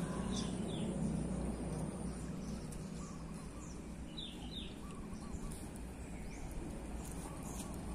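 Steady outdoor background noise with a few short, falling bird chirps: a quick pair about half a second in and another pair about four seconds in.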